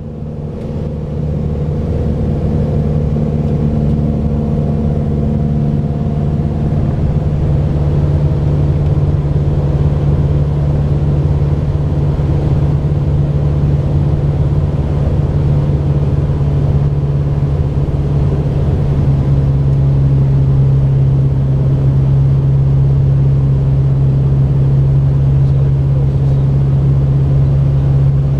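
Steady drone of a Mooney M20J's four-cylinder Lycoming IO-360 engine and propeller, heard inside the cabin, with a constant low hum over a rumble.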